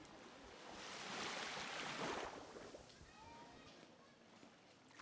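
Gentle surf: a small wave washing up onto a sandy beach, its faint hiss swelling about a second in and then drawing back.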